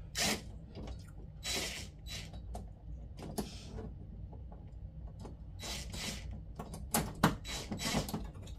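Cordless drill driving a screw into a TV wall-mount bracket in a few short bursts, with scattered clicks between them.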